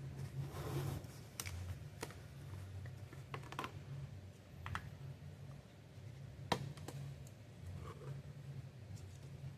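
Scattered light clicks and taps from handling oil containers at the engine's oil filler during an oil refill, with one sharper tap about six and a half seconds in, over a low steady hum.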